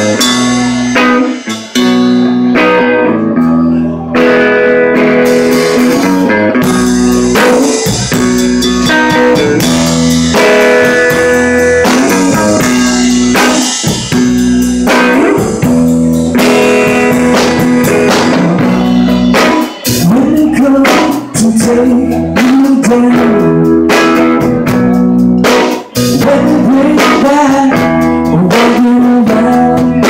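Live band playing a song, led by a single-cutaway electric guitar over a drum kit.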